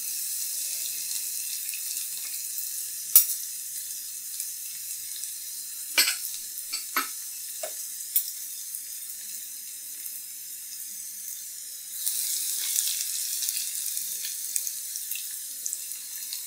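Chopped garlic sizzling in hot oil in a non-stick kadhai: a steady frying hiss with a few sharp ticks, growing louder about twelve seconds in.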